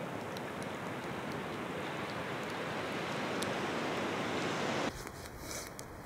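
Steady rushing of flowing river water. It cuts off abruptly about five seconds in.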